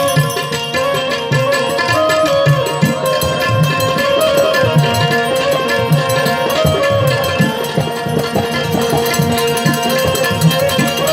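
Gujarati devotional folk music played without singing: a harmonium holds sustained notes over a steady, rhythmic tabla beat.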